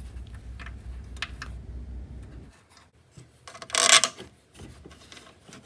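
Hand tools on metal engine bolts: scattered sharp clicks and a brief louder rasp about four seconds in. A low hum stops abruptly about two and a half seconds in.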